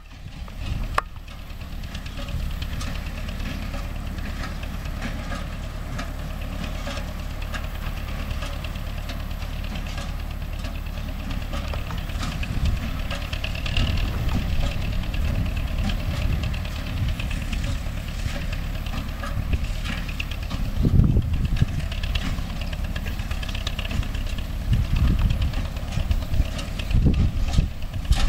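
MTZ-5 tractor engine running steadily while driving a hay baler, with a constant light mechanical ticking and clatter over it; the engine note swells louder about two-thirds of the way through and again near the end.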